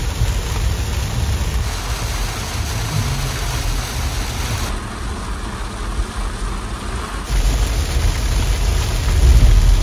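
Vehicle engine running with a low rumble under a steady hiss of rain. The sound changes abruptly about two, five and seven seconds in.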